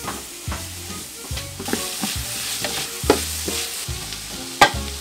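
A wooden paddle stirring and scraping round a large aluminium pot on the stove, over a steady sizzle of food cooking in it.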